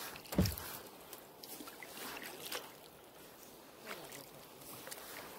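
Kayak moving slowly on calm water: faint splashes and drips of water, with one low thump about half a second in.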